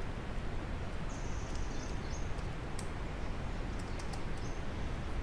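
Steady microphone hiss with a few faint computer keyboard key clicks as a name is typed.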